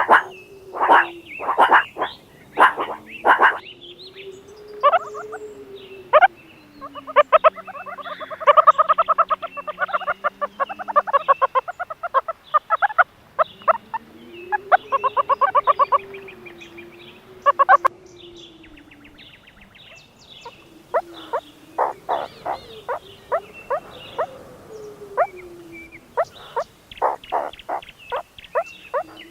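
Meerkats calling: a run of short, sharp chirps, with fast rattling trills about a quarter of the way in and again about halfway, over a low wavering tone.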